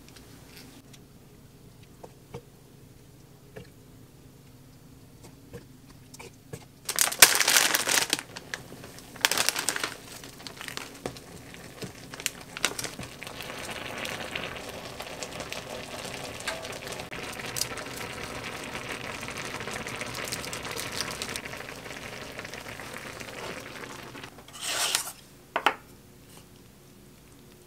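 Plastic packaging crinkling loudly for about a second, followed by a shorter rustle, then a pot of creamy noodle soup simmering with a steady hiss as a wooden spatula stirs it; a short clatter near the end.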